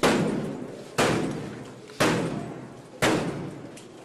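Metal handheld battering ram striking a door, four heavy bangs about a second apart, each dying away before the next.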